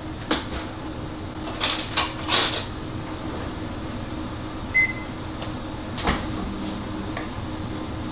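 Kitchen handling noise: a few sharp knocks and clicks of metal pans and utensils, the loudest cluster in the first three seconds, then a short electronic beep from the gas range's control panel about five seconds in, and one more knock a second later, over a steady low hum.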